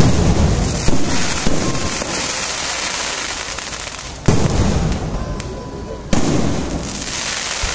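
Aerial firework shells bursting overhead in a string of loud bangs: three close together in the first second and a half, then single bursts about four and six seconds in, each fading off slowly.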